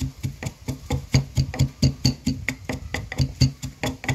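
Wooden pestle pounding garlic cloves and salt in a wooden mortar: steady hollow knocks, about three a second, as the garlic is crushed to a paste.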